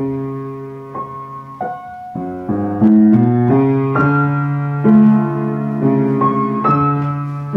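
"Ukraina" upright piano from Chernihiv being played: chords ringing over a held bass note, with a quicker run of notes about two to three seconds in.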